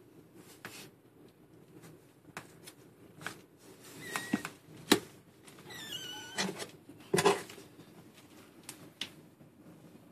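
Kittens giving a few short, high mews around the middle, among rustling of the blanket and knocks from the phone being handled, which are the loudest sounds.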